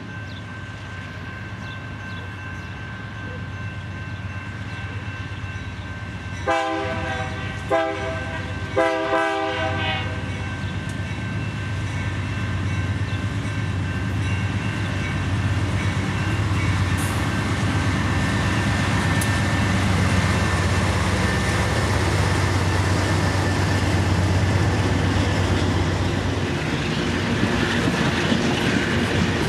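A BNSF diesel freight train's horn sounds three blasts, a long one, a short one and a longer one, about a third of the way in. The locomotives' diesel engines and the wheels on the rails then grow steadily louder as the train passes close by, pulling hopper cars with a clickety-clack of wheels on rail joints.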